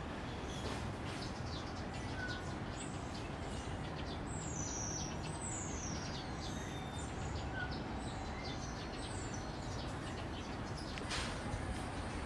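High-pitched bird chirps and whistles, including several quick downward-sweeping calls about halfway through, over a steady low background rumble. A short knock comes near the end.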